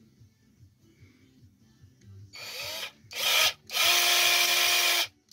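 Bare brushed DC motor of a 24 V cordless mini chainsaw, the ordinary drill-driver type, whirring in bursts as its loose positive lead is held against the terminal. About two seconds in it spins up with a rising whine, runs briefly twice more, the last time for about a second and a half, and starts again at the very end. That it runs shows the motor is sound and the fault was the positive lead come unsoldered from it.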